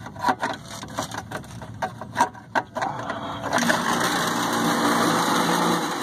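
A series of clicks and knocks, then about three and a half seconds in the Tempstar/ICP condensing unit's compressor and fan start up, pulled in by the newly replaced contactor, and run with a steady, loud noise.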